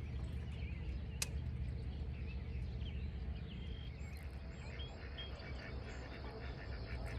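Lakeside outdoor ambience: a steady low rumble with scattered short bird chirps, a single sharp click about a second in, and a quick run of rapid ticking near the end.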